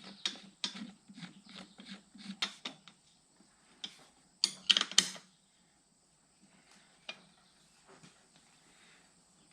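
A scatter of light clicks and knocks from tools and parts being handled, with a louder burst of clatter about four and a half seconds in, then only a few faint ticks.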